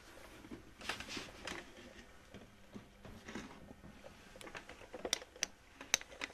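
Handling noise: scattered light clicks and taps with soft rustling, and a few sharper clicks near the end.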